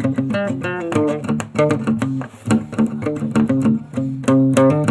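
Instrumental outro music: a quick run of plucked notes over a bass line.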